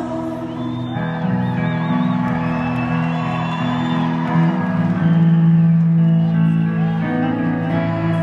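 Music: sustained notes and chords that change every second or two, with a wavering high melody line in the first couple of seconds.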